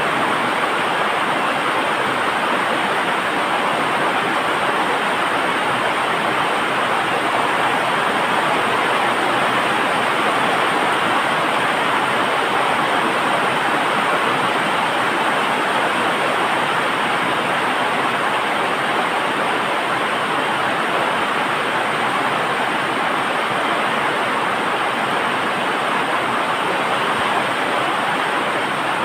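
A loud, steady rushing noise that never changes or breaks, with no distinct clicks or tones in it.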